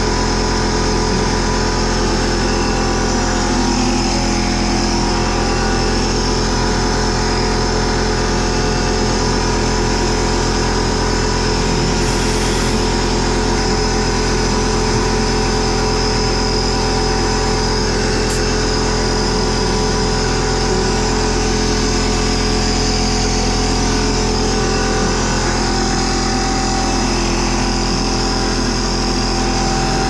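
Portable electric air compressor running with a steady, unchanging hum.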